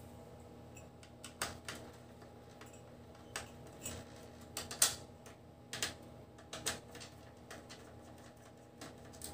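Irregular light clicks and knocks of hands working inside an opened DVD player, handling its metal chassis and plastic parts while pulling connectors; the sharpest click comes about five seconds in.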